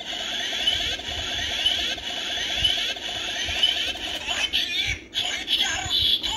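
Kamen Rider Ex-Aid DX Gamer Driver belt toy playing a continuous electronic sound loop through its small built-in speaker, tinny and steady, then changing and breaking up about four and a half seconds in.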